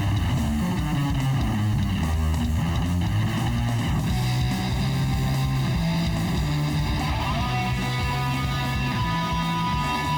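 Background rock music led by guitar over a bass line, playing steadily.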